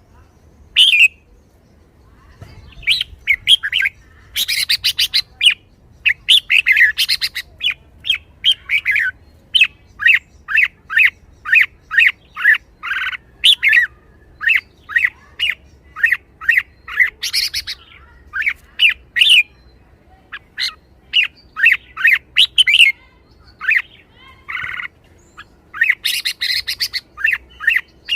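Red-whiskered bulbul calling in a lively run of short, sharp notes, roughly two a second, mixed with a few longer buzzy notes.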